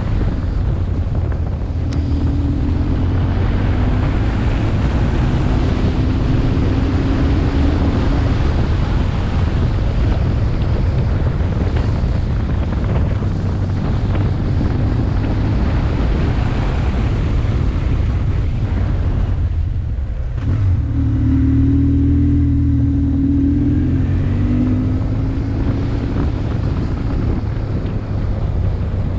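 Wind rushing over a helmet-mounted action camera at riding speed, with a BMW R1150R's boxer twin engine running steadily underneath. About twenty seconds in the sound dips briefly, then the engine note comes up stronger.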